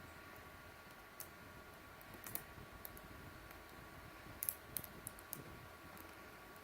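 A few scattered light clicks of a small screwdriver and screws against a laptop's plastic casing, over a faint steady hum.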